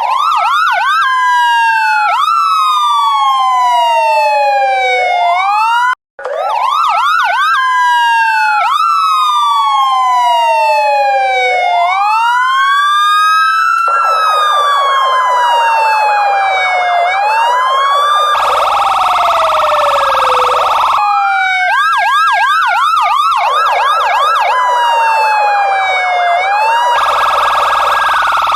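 Electronic police car sirens wailing and yelping, slow rising and falling sweeps alternating with quick rising yelps and stretches of very fast warble, often two sirens sounding at once. The sound cuts out for an instant about six seconds in.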